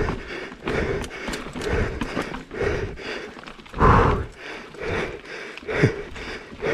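A mountain biker's heavy, rhythmic panting, about one and a half breaths a second, from hard effort on the racing descent. One louder gasp comes about four seconds in, with light clicks and knocks from the bike on the rough trail underneath.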